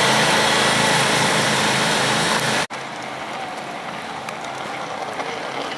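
Riding lawn mower engines running loud and steady at racing speed, then cut off abruptly about two and a half seconds in, leaving a quieter outdoor background.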